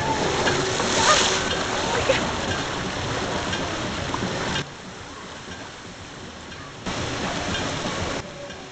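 Rushing, splashing water, an even hiss with faint voices of people in the background. The water noise is louder for the first four and a half seconds, drops off suddenly, then comes back for just over a second near the end.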